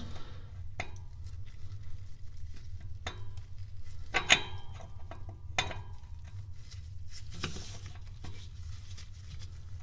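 A handful of scattered light metallic clinks and taps, the loudest about four seconds in with a short ring, as the speedometer pinion gear and its housing are worked into the transmission case. A steady low hum runs underneath.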